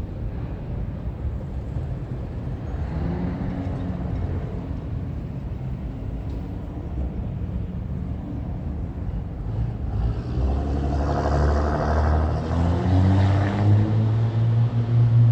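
Freight train rolling past with steady wheel-and-rail rumble. From about ten seconds in, a diesel locomotive engine's low drone grows loud as the locomotive draws near.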